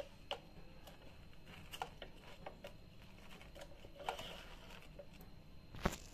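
Wooden spatula tapping and scraping against the ridged nonstick plate of an electric sandwich grill as a grilled sandwich is lifted off. Light taps are scattered throughout, with one sharper knock near the end.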